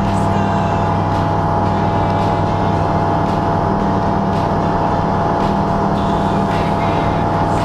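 Aeroprakt A22L2 ultralight's engine and propeller running at steady takeoff power through liftoff and climb-out, a constant drone heard inside the cockpit.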